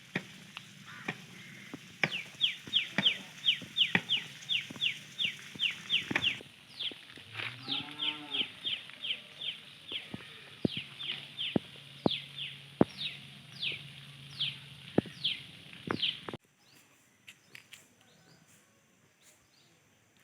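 Animal calls: a fast series of short falling chirps with sharp clicks, and one low call like a cow lowing about eight seconds in. It all cuts off abruptly about sixteen seconds in.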